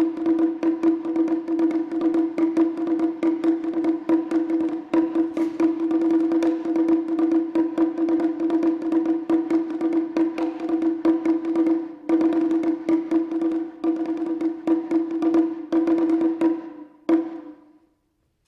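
Japanese taiko ensemble playing fast, dense strikes over a steady held pitched note. The music stops together with one final stroke near the end.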